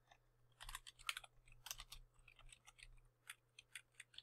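Computer keyboard typing: faint, quick, irregular keystrokes.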